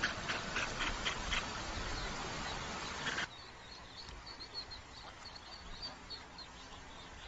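Duck calling in short repeated calls over steady street background noise, which cuts off abruptly about three seconds in. After that it is quieter, with faint, high, rapid peeping of ducklings.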